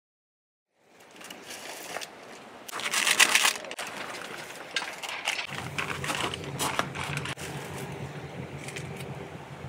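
Metal camping pot and lid being handled on a wood stove: clinks, scrapes and rustling, starting about a second in after a moment of silence, with the loudest burst about three seconds in. From about five seconds in, a steady low hum sounds under it.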